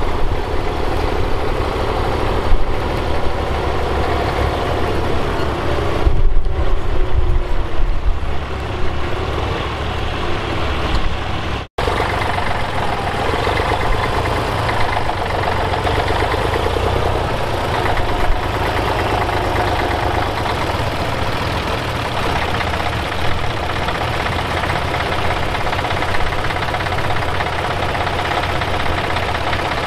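Bukh Juno tractor's diesel engine running steadily as it pulls a plough through stubble, with an uneven low rumble in the first part. The sound drops out for an instant about twelve seconds in, then the engine carries on evenly.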